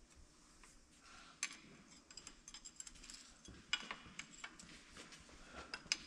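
Hand wrench clinking against a bolt on a truck's drivetrain gearcase, in scattered light metallic clicks and clinks. Three sharper clinks come about one and a half, three and a half and six seconds in.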